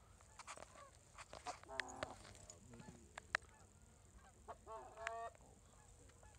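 Canada geese honking faintly from a flock in flight, scattered single honks and short runs of calls, the clearest about two and five seconds in.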